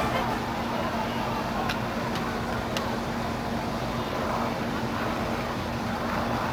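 Steady background noise with a constant low hum, and a few faint clicks about two seconds in.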